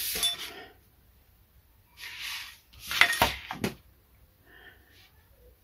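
Sheets of drafting paper being moved and smoothed on the table, with a clatter of metal drawing tools. The loudest part is a few sharp clicks around three seconds in.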